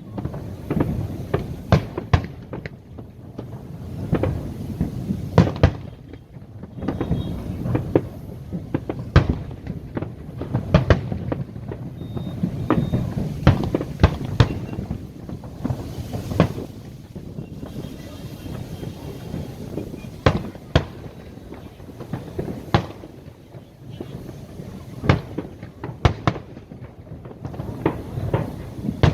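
Aerial fireworks display: a rapid, irregular series of sharp bangs and crackles over a continuous low rumble.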